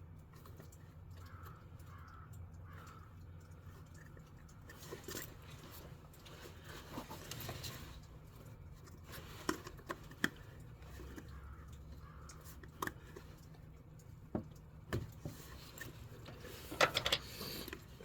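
Scattered clicks, taps and light knocks of hands and small tools working on hoses and fittings, over a steady low hum. A short burst of louder clatter comes near the end.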